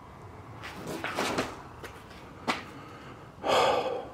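A man breathing hard and gasping, with heavy breaths about a second in and a louder one near the end, and a single sharp click in between.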